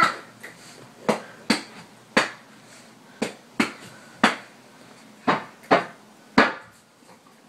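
A series of about nine sharp knocks or taps at irregular intervals, roughly one every half second to a second, in a small room.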